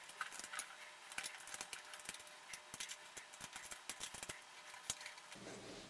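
Faint, irregular small clicks and taps of the Ender 3's filament spool holder bracket being handled and fastened onto the printer's aluminium top rail.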